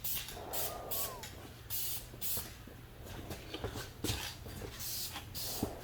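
Aerosol spray can of candy paint hissing in a string of short bursts, each lasting a fraction of a second, over a steady low hum.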